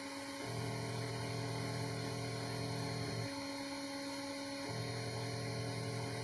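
Prusa 3D printer printing: its stepper motors give a steady hum of several pitches, which stops for about a second and a half midway, then resumes.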